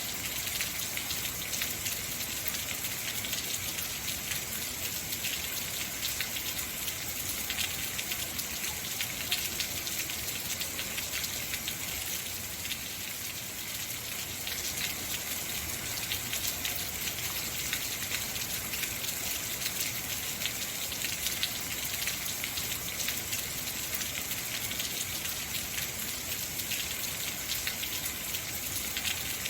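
Heavy rain falling steadily, a dense, even hiss of many drops with no letup.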